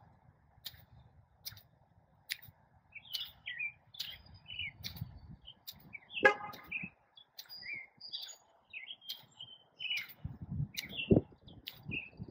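Songbirds chirping with many short calls, along with faint regular ticks about every second. A short louder sound comes about six seconds in and again near the end.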